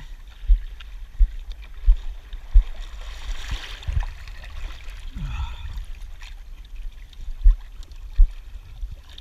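Small waves sloshing and lapping against a waterproof action camera bobbing at the water's surface, with irregular dull low thumps as the water slaps the housing and a brief gurgling splash about three and a half seconds in.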